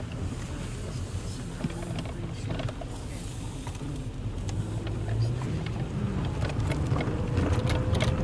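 Car driving slowly on a gravel road, heard from inside the cabin: a steady low engine and road rumble with the tyres crackling over loose stones.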